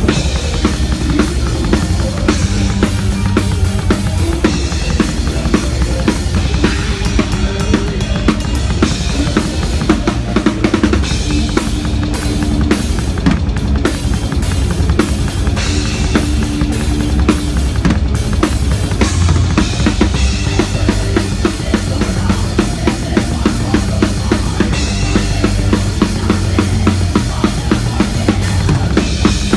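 Pearl acoustic drum kit with Sabian cymbals played live in a fast metal song: rapid, continuous bass drum strokes with snare hits and cymbals over them, heard close from the drummer's seat, with the band's held notes faintly underneath.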